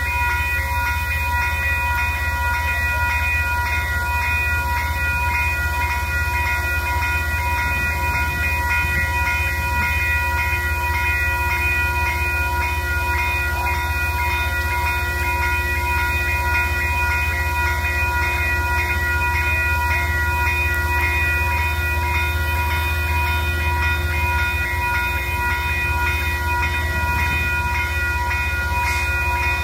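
A train standing with its locomotive running: a steady low engine drone with several high, unchanging whining tones over it, holding at one pitch throughout.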